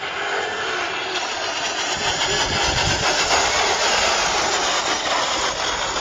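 Radio-controlled car racing across pond water, its motor running hard under a steady hiss of spray, getting louder with a low rumble from about two seconds in.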